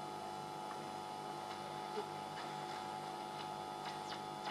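Orion AR205 Orionette valve radio tuned between stations: a steady mains hum and faint hiss from its loudspeaker, with a few light crackles and no station coming through.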